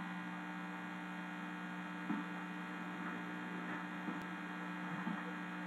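Steady electrical mains hum made of several fixed tones, with a few faint soft knocks about two, three and a half and five seconds in.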